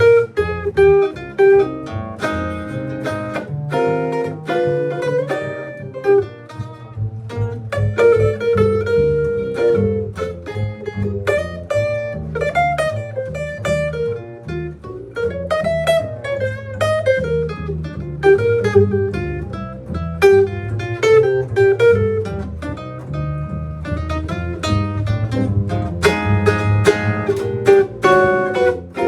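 A band playing an instrumental passage at rehearsal. A lead melody slides up and down in pitch over a bass line and a steady run of sharp percussive hits, with guitar prominent.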